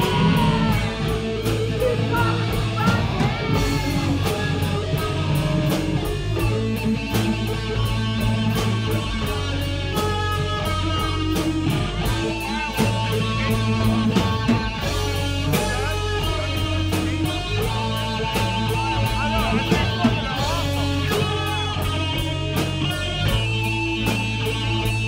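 Live rock band playing: electric guitar lines over bass and a drum kit, with steady drum hits throughout.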